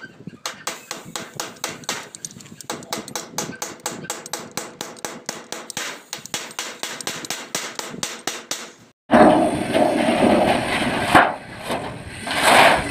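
Claw hammer tapping rapidly on red painted metal wall flashing, about four or five light, even strikes a second. The tapping stops about nine seconds in and a louder steady rushing noise takes over.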